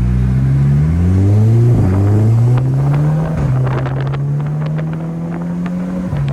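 Stage 2+ tuned Mk6 VW Golf R's turbocharged four-cylinder engine accelerating hard through the gears. Its pitch climbs and drops back three times as it shifts up, with a run of sharp clicks in the middle. It is running on new spark plugs and coil packs fitted to cure a misfire.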